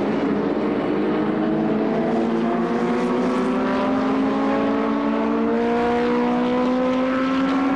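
Classic single-seater racing car's engine running hard under acceleration, its note climbing slowly and steadily.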